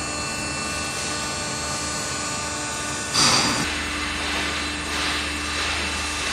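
Hydraulic drive of a container tilt unloader running steadily as it raises a shipping container. About three seconds in there is a brief loud rush of noise, after which a lower steady hum takes over, swelling gently about once a second.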